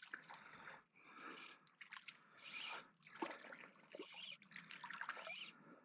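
Water splashing and dribbling in a string of short bursts as a freshly hooked rainbow trout thrashes on the line.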